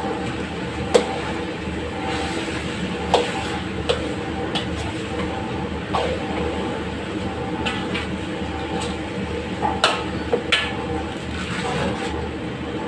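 A metal spatula clanking and scraping against a steel wok as chicken curry is stirred: a handful of sharp knocks, the loudest about a second in and three close together near ten seconds, over a steady background drone.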